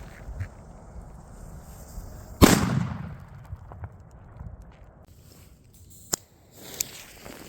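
One loud firecracker bang about two and a half seconds in, its echo dying away over about half a second, then two small sharp cracks near the end.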